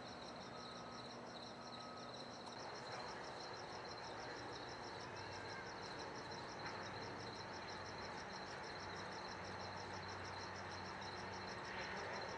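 Crickets chirping in a steady, evenly pulsing high trill, about four pulses a second, over a faint low hum.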